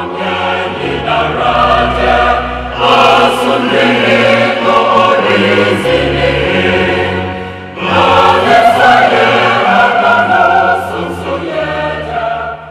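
Choral music: a choir singing held, multi-voiced chords over steady low bass notes. It dips briefly past the middle, then swells loud again.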